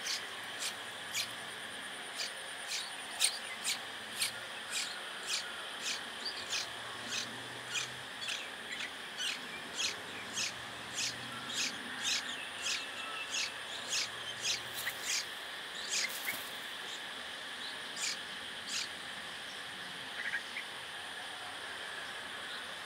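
Songbird nestlings begging at the nest: thin, high cheeps, each a short downward slur, repeated about twice a second and growing sparser near the end.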